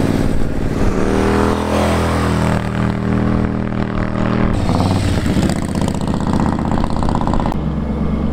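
Motorcycle engines running as the bikes ride past through a bend, their pitch rising and falling as they go by. The sound changes abruptly twice, about halfway through and near the end, as a different bike is heard.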